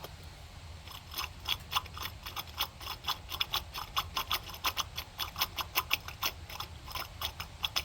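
Worn idler pulley from a Craftsman YT4000 lawn tractor deck turning with rapid, uneven clicking from its bearing, starting about a second in. The bearings are shot.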